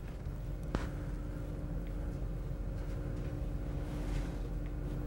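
Steady low room hum and rumble, with a faint steady tone above it and a single sharp click about three quarters of a second in.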